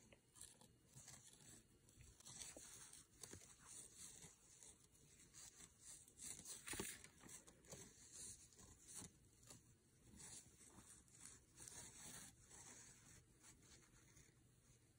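Faint rustling and scraping of yarn drawn over a crochet hook and through the stitches, in short irregular strokes, as triple crochet stitches are worked.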